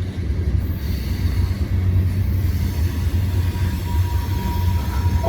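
Freight cars of a long Norfolk Southern mixed freight rolling past, a steady low rumble of steel wheels on the rails.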